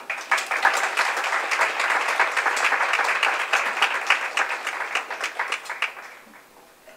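Small audience applauding after a speech, the clapping thinning out and stopping about six seconds in.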